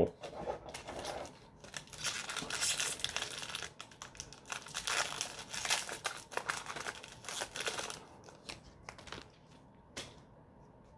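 Foil Yu-Gi-Oh! booster pack being torn open and crinkled in the hands, a run of crackling from about two seconds in to about eight, followed by a few light clicks as the cards are handled.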